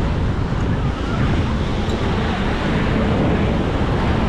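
Ocean surf breaking steadily on a sandy beach, with wind rumbling on the microphone.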